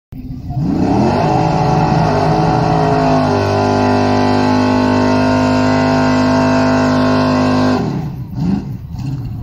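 Second-generation Chevrolet Camaro's engine revved up and held at high revs through a burnout, the rear tyres spinning and smoking against the pavement. Near the end the revs drop, then blip a few times at a lower pitch.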